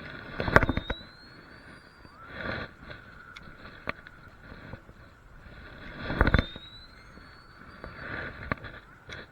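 Two fireworks, about six seconds apart. Each one goes off with a sharp bang, then a thin whistle rises for about a second, and a softer pop follows about two seconds after the bang.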